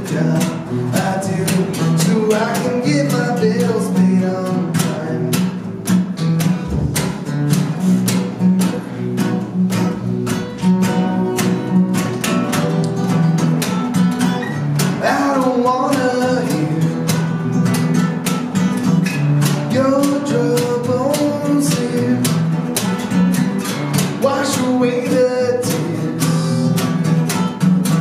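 Live acoustic duo: an acoustic guitar strummed in a fast, driving rhythm over a finger-played acoustic bass guitar line.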